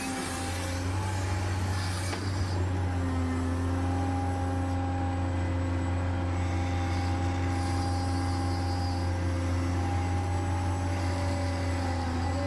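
Hydraulic pump of an RC excavator running with a steady hum and whine, the pitch of its whine stepping up and down a few times as the hydraulics work.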